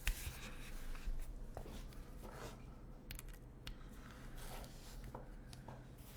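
Mechanical keyboard with lubed Gateron Red Ink linear switches, FR4 half plate and CRP R4 keycaps, being typed on in scattered, unhurried keystrokes.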